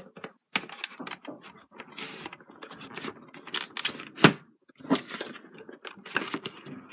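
DVD cases being pushed and slid into a snug cardboard box sleeve: irregular scraping, rustling and clicking, with a sharp knock about four seconds in.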